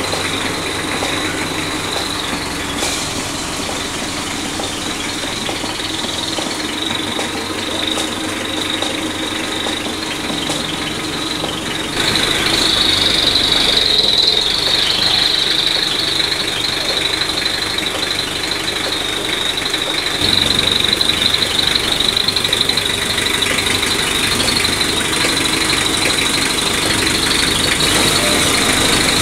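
Vehicle engine running, with a steady high-pitched whine over it that gets louder about twelve seconds in.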